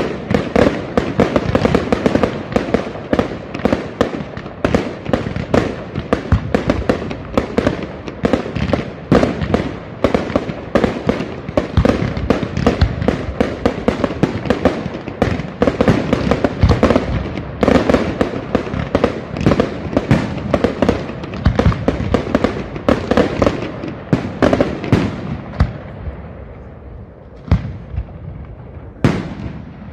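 Fireworks display: a dense barrage of rapid bangs and crackling shell bursts, thinning out near the end to a few single booms.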